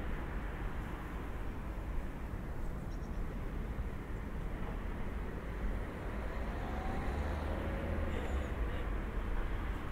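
Steady outdoor town ambience: a low, even rumble of distant road traffic, with a faint brief rising tone about seven seconds in.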